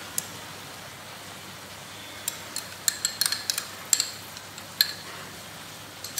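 Mutton sizzling steadily in a steel kadhai over high heat, with a run of sharp clinks between about two and five seconds in as a small glass bowl knocks against the steel pan while being emptied into it.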